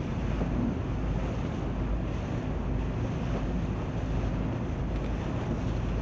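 Wind noise on the microphone over a steady low rumble of boat engines on the water.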